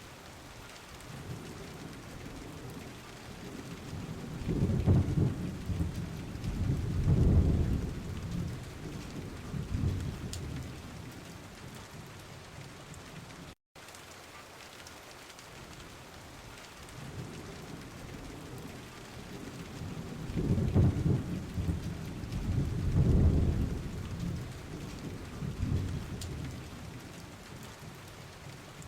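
Steady rain falling, with rolling thunder that swells up twice in a deep rumble, in the first half and again in the second. There is a brief dropout halfway through.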